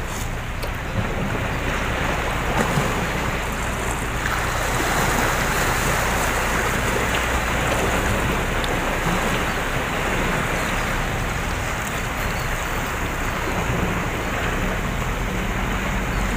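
Choppy sea water washing against a concrete harbour pier, with wind on the microphone and a steady low hum underneath.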